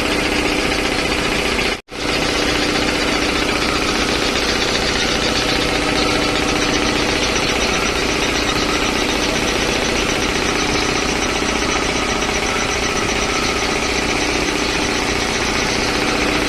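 Belt-driven 3 HP air compressor running steadily after a service with a fresh belt and fresh oil: a dense mechanical clatter with a steady hum. The sound cuts out for a split second about two seconds in, then resumes unchanged.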